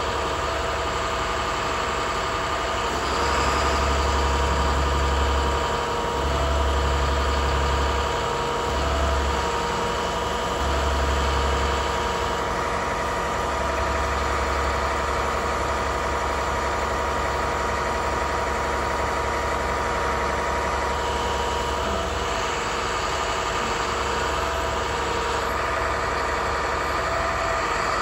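Diesel truck engine (MaxxForce DT turbo diesel) running steadily with the digger derrick's hydraulics engaged. Its low hum swells and drops in several stretches, some of them a second or two long and one about eight seconds long.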